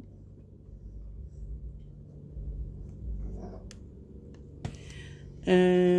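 Low room rumble with faint handling sounds of a soft plastic baby-wipes pack and a single sharp click a little before the end. A long, drawn-out spoken 'and' begins near the end.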